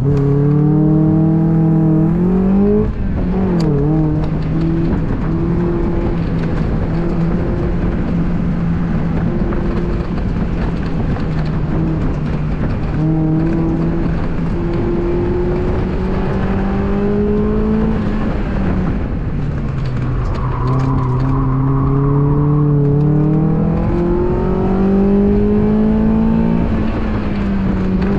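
2002 Mazda Miata's 1.8-litre four-cylinder engine pulling hard through an autocross course. Its pitch holds steady for stretches, then dips and climbs again as the driver lifts, shifts and accelerates.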